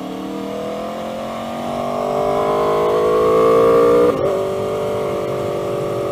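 Aprilia Tuono V4 engine through an aftermarket GPR exhaust, accelerating with its pitch climbing steadily for about four seconds, then dropping back sharply and holding a steady note for the rest.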